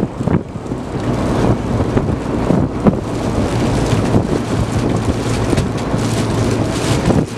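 A fishing boat's machinery running steadily with a low hum, under wind buffeting the microphone and sea noise, with a single knock about three seconds in.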